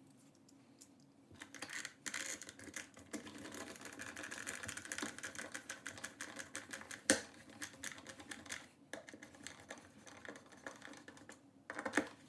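Screwdriver driving the dimmer switch's mounting screws into the electrical wall box: a long run of small clicks and scrapes, with one sharp louder click about seven seconds in.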